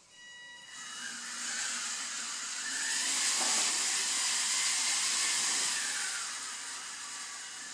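Small wheeled robot's electric drive motors whirring as it drives. It is a steady hiss-like whirr with a faint whine that rises and then falls in pitch, swelling after about a second, loudest in the middle and easing near the end.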